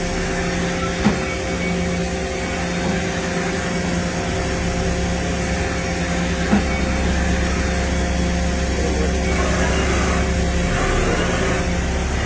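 Mazak VCN 410A CNC vertical machining center running: a steady mechanical hum with several steady whining tones and a hiss. Two short clicks come about a second in and again about six and a half seconds in.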